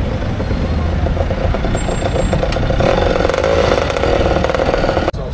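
Motor scooter engines running, with a fine rapid pulsing to the sound. The sound drops out sharply for a moment near the end.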